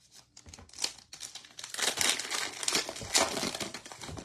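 Baseball card pack wrapper crinkling as it is handled: a dense run of crackly rustles that builds from about half a second in and is loudest in the middle.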